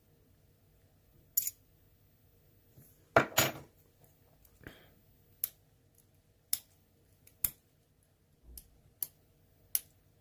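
Sharp metallic clicks and taps, roughly one a second, with a louder clatter about three seconds in: small parts and tools being handled on a disassembled ASSA Twin lock cylinder.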